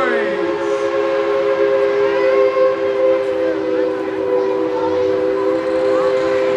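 Steam locomotive whistle held in one long, steady three-note chord, over the running noise of the train.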